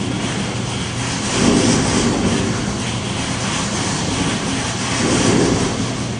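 Earthquake-simulation test rig running while it shakes a grooved-coupling pipe assembly: a steady mechanical rumble and hum with hiss, swelling about a second and a half in and again near five seconds.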